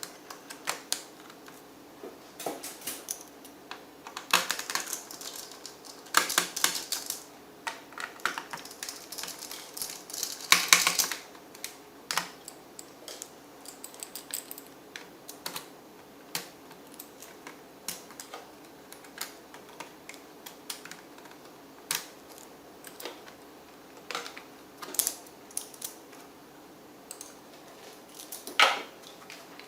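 Small plastic and metal parts of a laptop being worked apart by hand: irregular clicks and taps, with a few longer scraping stretches.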